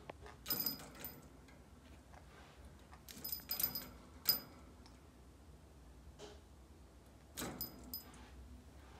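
Birdcage toys and wire clinking and jangling in three short bursts, with brief high metallic rings among the clicks.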